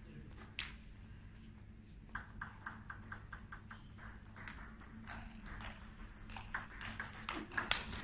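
Table tennis ball clicking: a run of quick, even bounces about two seconds in, then a rally of sharp clicks of the ball off rackets and table that comes faster and louder near the end.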